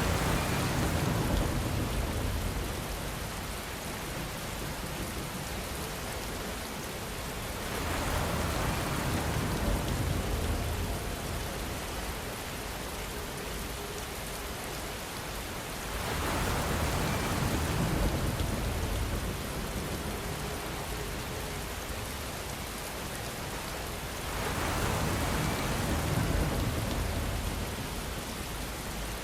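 Steady rainfall, a dense even hiss of drops. It swells louder four times, about every eight seconds, with a low rumble in each swell.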